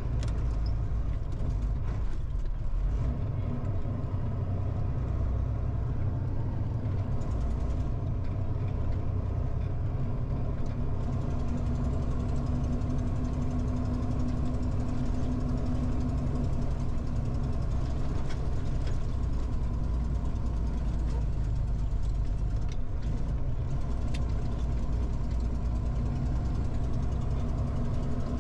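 Heavy truck's diesel engine running steadily, heard from inside the cab.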